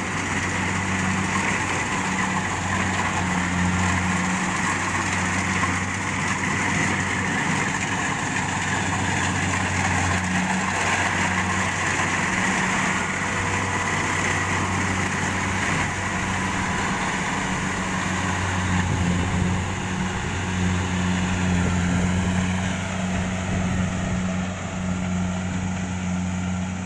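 Rice combine harvester's engine running steadily, a constant low hum.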